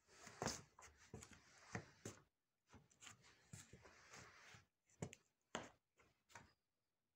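Faint rustling and rubbing, broken by scattered sharp clicks and taps: handling noise.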